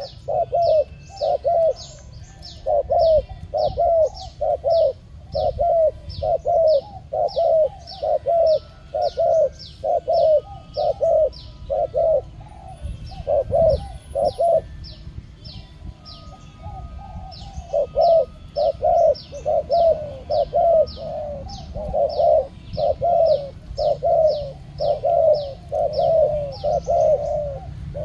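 Spotted doves cooing in rapid, repeated phrases with only a brief pause partway through, over a steady high ticking at about three a second.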